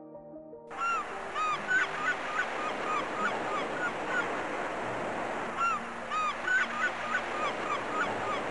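Music cuts off just under a second in and gives way to a flock of black-headed gulls calling: many short, overlapping rising-and-falling cries over a steady hiss.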